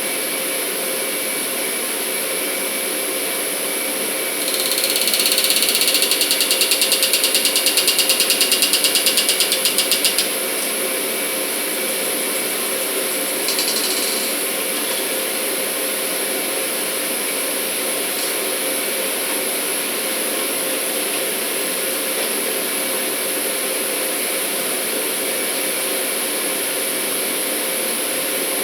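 Steady, loud industrial machinery noise with a constant hum. From about four to ten seconds in, a louder mechanical sound pulses rapidly over it, and a short burst follows near fourteen seconds.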